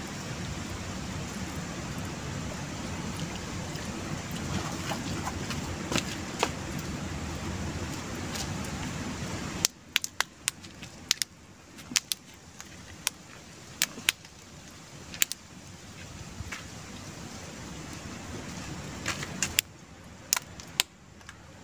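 Dry Ruellia seed pods bursting open in water: sharp little pops and cracks, a few at first, then a quick scatter of them over the second half. They sound over a steady hiss that drops away about halfway through.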